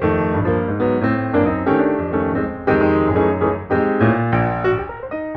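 Background music: piano playing a melody over chords, note after note with each one fading.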